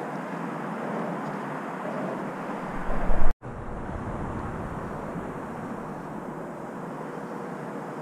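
Steady background rumble of distant traffic and industrial surroundings, with a loud low rumble surging about three seconds in. It cuts off in a brief moment of complete silence, and a lower rumble continues afterwards.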